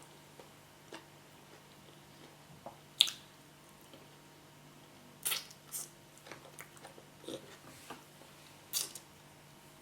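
Close-up chewing and mouth sounds of someone eating yam cooked with spinach: soft wet smacks and bites, with a sharp click about three seconds in, over a faint steady hum.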